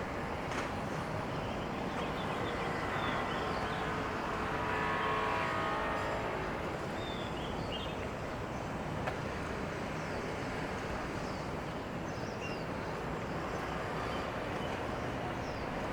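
An engine passing, swelling to its loudest about five seconds in and fading, over steady outdoor traffic-and-harbour ambience, with birds chirping.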